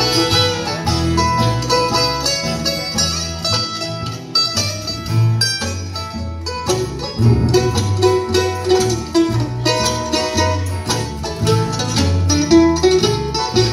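Live bluegrass band playing an instrumental passage without singing: banjo and acoustic guitar picking over an upright bass playing alternating low notes, with fiddle and mandolin in the band.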